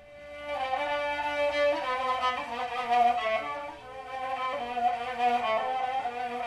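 Small Kurdish-Persian folk ensemble playing: violin and kamancheh bowing a melody of held and moving notes over a hammered santur and a plucked long-necked lute. A single held note opens, and the full ensemble comes in about half a second in.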